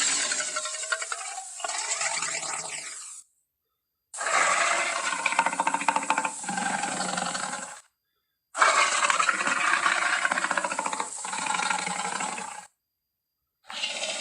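Animated-film tarbosaurus vocal sound effects: a run of separate dinosaur roars and growls, each a few seconds long, with a short dead-silent gap between them. The first fades out about three seconds in, two more follow, and a fourth begins near the end.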